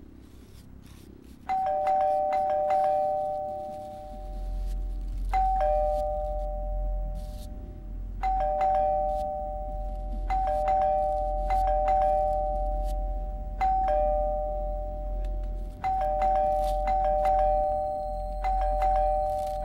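Two-tone ding-dong doorbell rung again and again, a higher chime then a lower one. The rings come every few seconds and sometimes in quick succession.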